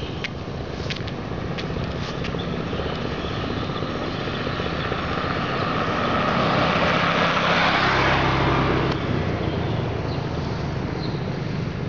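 A motor vehicle passing along the road, growing louder over several seconds and then dropping off suddenly about nine seconds in, over a steady low engine hum.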